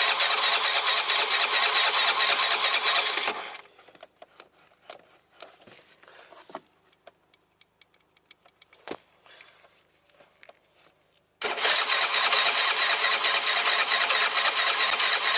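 Piaggio MP3 scooter's electric starter cranking the engine, which does not fire. There are two long cranks: the first stops about three seconds in, and the second starts about eleven seconds in. Light clicks and taps come in between. The engine won't start because fuel is not getting into the carburettor body, which the mechanic puts down to a likely blockage in the fuel pipe.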